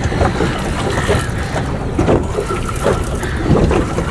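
Wind rumbling on the microphone over water lapping against a small fishing boat, with scattered light knocks.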